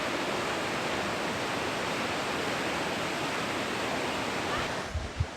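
Waterfall rushing in a steady, even roar. A couple of short low thumps near the end.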